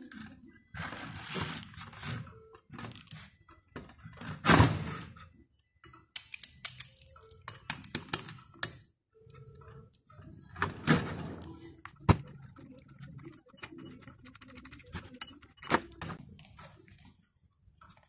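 Ratchet spanner clicking in short runs as bolts are undone on a removed power steering pump, among irregular metallic clinks, scrapes and knocks of parts being handled, with one sharp knock about twelve seconds in.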